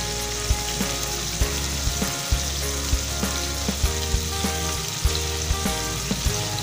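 Marinated minced meat sizzling in hot oil in a non-stick wok, a steady sizzle with frequent small pops, while the meat's own water cooks off over a low flame.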